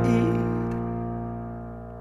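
Background pop music: the end of a sung line trails off, then a held keyboard chord dies away slowly.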